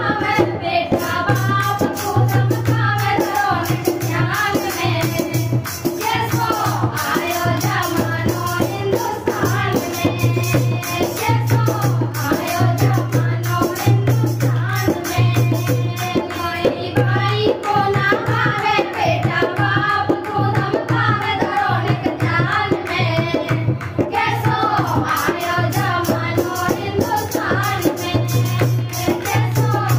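Women singing a Hindi devotional bhajan together, with hand-clapping and a steady drum rhythm underneath.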